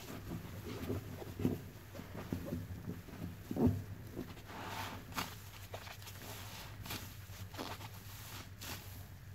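Soapy sponge being squeezed and kneaded in thick suds: irregular wet squelches and crackling foam, with the loudest squelch about three and a half seconds in and a few short hissing squirts in the second half.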